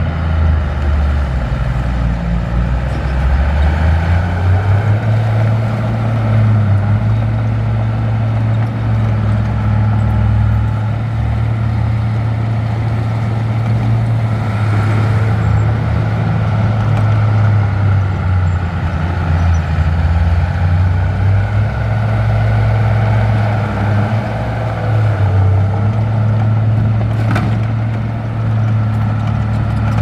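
Heavy construction machine's diesel engine running steadily, its pitch stepping up a few seconds in, with one sharp knock near the end.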